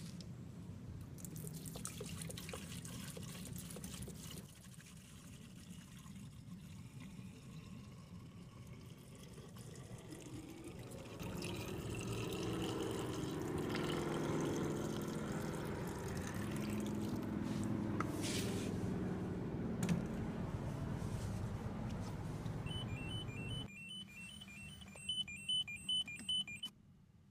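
Liquid glugging and splashing as it is poured from a plastic jug into the Peugeot 406's coolant reservoir, growing louder about halfway through. After a break near the end, the dashboard warning chime gives a run of about five short beeps.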